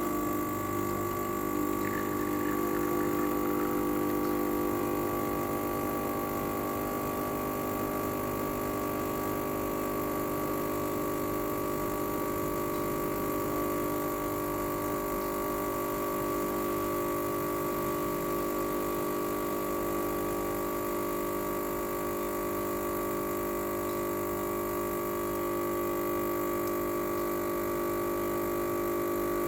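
Gaggia Classic espresso machine's vibratory pump running steadily, a constant hum held for about half a minute while it pushes water through the coffee to pull a double shot.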